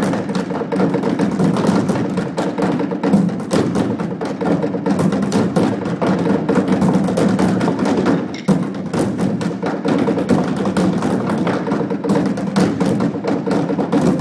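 A percussion ensemble playing rhythmically on upturned trash cans, a dense run of strikes with a short break about eight and a half seconds in.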